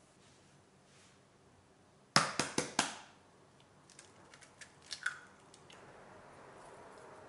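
An egg is tapped four times in quick succession on a flat worktop to crack the shell. Softer clicks follow as the shell is pulled open over a glass bowl.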